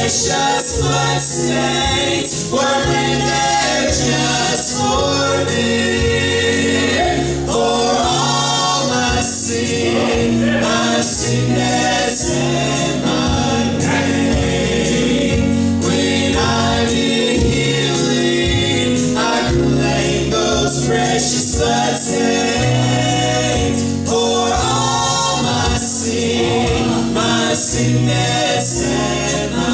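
Gospel group singing in harmony, a man's and women's voices together on microphones, over a band with drums and a walking bass line.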